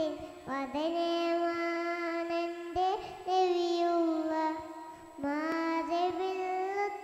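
A young girl singing solo into a microphone, holding long drawn-out notes in phrases of about two seconds each, with brief pauses for breath between them.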